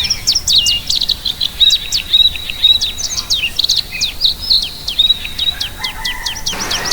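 A flock of small caged birds chirping together: rapid, high, falling chirps overlapping one another, several a second.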